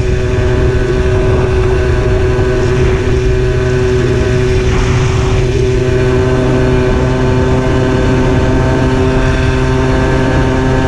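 Simson S51's two-stroke single-cylinder engine running at a steady throttle while riding, heard from on board with wind rush over it.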